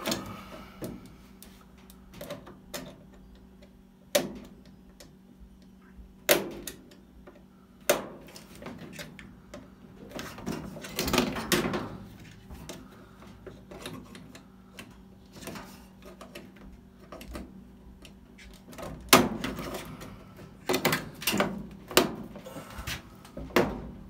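Scattered clicks, knocks and short clattering rattles of hands working at a clothes dryer's timer/selector switch in its control console, pulling the wire connectors off the old switch. A faint steady hum runs underneath.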